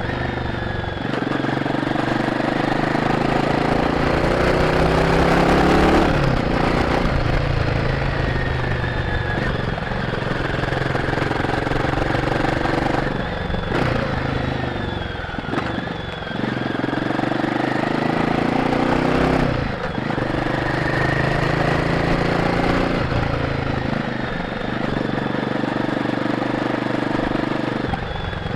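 Royal Enfield Guerrilla 450's single-cylinder engine through its stock exhaust, under way and pulling through the revs. The engine note drops sharply about five times and climbs again each time.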